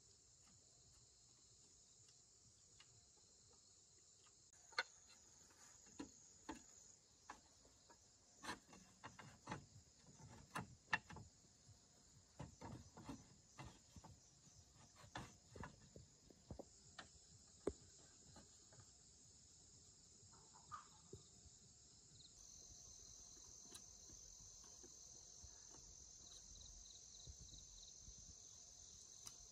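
Faint, steady high-pitched chirring of a forest insect chorus, a little louder from about 22 seconds in. From about 5 to 21 seconds, many short sharp clicks and knocks come at irregular intervals, the loudest around 11 seconds.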